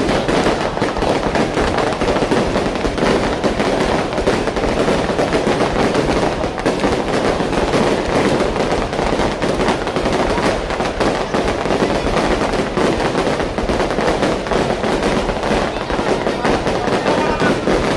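Fireworks going off in a dense, unbroken barrage of pops and crackles.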